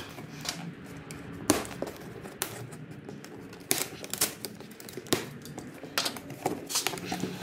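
Scattered sharp clicks and clanks, about eight at uneven intervals, of hand tools and packaging being handled, including cutters snipping the plastic strapping around a long cardboard box.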